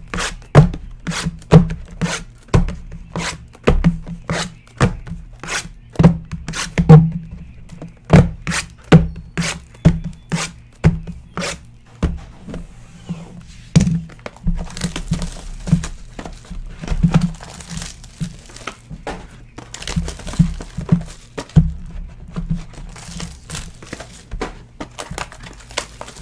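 Sealed trading-card hobby boxes knocking against each other and the desk as they are shuffled and restacked, a sharp knock about every half second. About halfway through, crinkling and tearing of shrink wrap and foil packs joins in as a box is opened.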